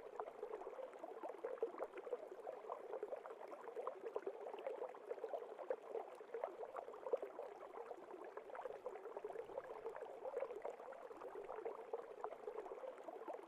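Faint moving water, gurgling steadily with a dense run of tiny splashes.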